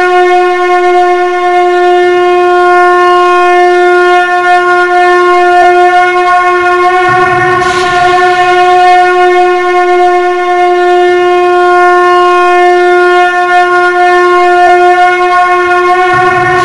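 Conch shell (shankha) blown in long, steady blasts on one held note. A fresh blast starts about seven seconds in and another near the end.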